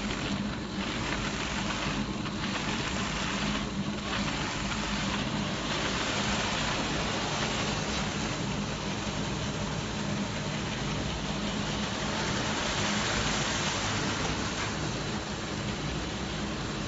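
MD1300-8P automatic brush sanding machine running: a steady motor hum under the hiss of its spinning sanding brushes, the hiss growing denser about five seconds in.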